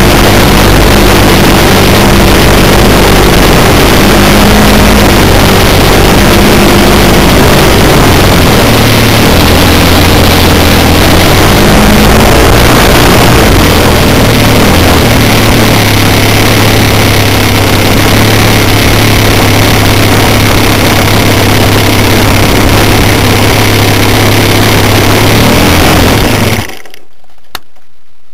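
Magnum .91 four-stroke glow engine of a quarter-scale Spacewalker RC plane idling loud and close, its pitch shifting a few times. It cuts off suddenly near the end, followed by a single click.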